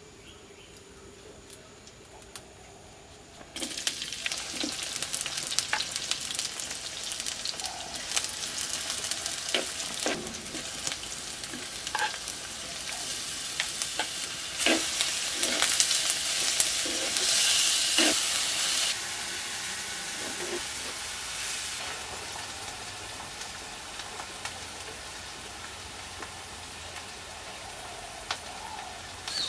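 Chopped mushrooms frying in a pan: a sizzle that starts suddenly a few seconds in, with scattered clicks and scrapes of stirring. It is loudest in the middle and eases off toward the end.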